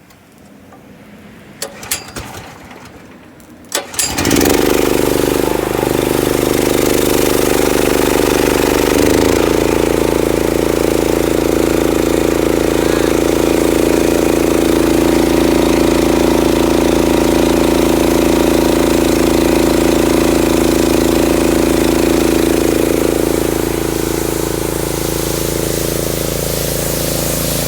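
Gasoline pressure washer engine started after a few clicks, catching about four seconds in and then running steadily under load, a little quieter near the end.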